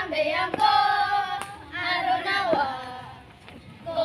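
A group of young girls singing a scout yell together in sung phrases, with two sharp hand claps in the first two seconds; the singing pauses about three seconds in and starts again near the end.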